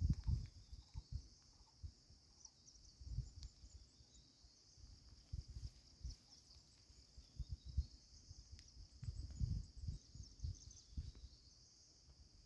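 A steady high-pitched chorus of insects droning throughout, over irregular low thumps and rumbles that come and go every second or so.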